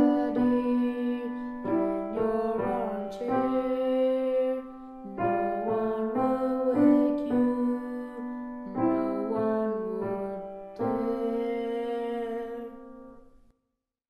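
Piano playing a slow, simple lullaby-style piece in three-four time, a right-hand melody over left-hand notes, ending on a held final chord about 11 s in that fades away.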